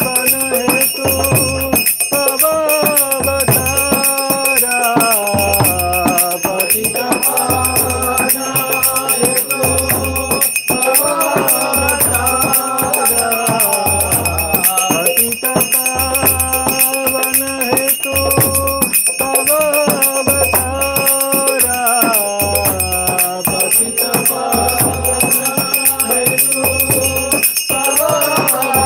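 Devotional music during an arati: a melody over a low drum beat about once a second, with continuous bright metallic jingling like bells or hand cymbals.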